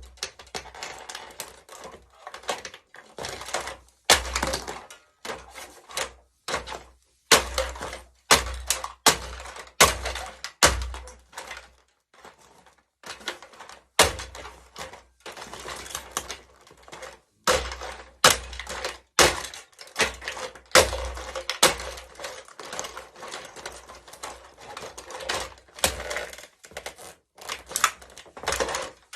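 Plastic remote-controlled toy car being crushed under high heels: a steady run of irregular sharp cracks and snaps of breaking plastic, many with a dull thud beneath.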